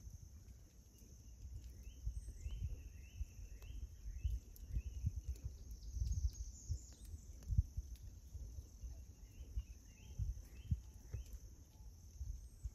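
Steady high-pitched insect drone, with faint series of short chirping calls about two seconds in and again about nine seconds in, over low, uneven rumbling thumps.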